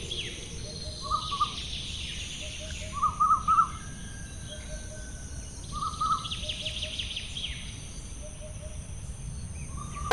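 Birds chirping in short repeated phrases, with quieter trills and a steady faint hiss beneath.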